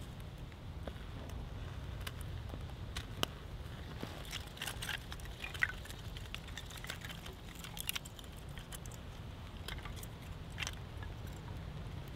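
Dry split kindling sticks clicking and knocking against each other and the split-log base as they are laid by hand over a small wood-wool firelighter flame, a scatter of light wooden knocks at irregular intervals.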